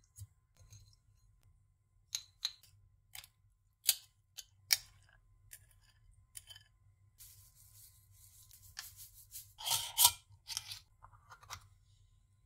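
Handling sounds in a kitchen: a handful of sharp, irregular clicks and taps, then a rustle that builds to a loud crackle and a few smaller ones near the end.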